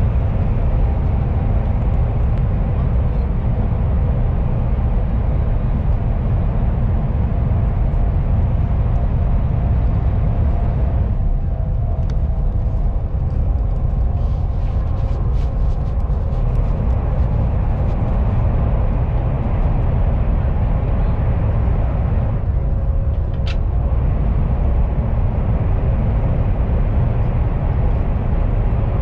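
Steady low rumble of a KTX high-speed train running, heard inside the passenger car. A few faint clicks and a sharp tick come about halfway through and later on.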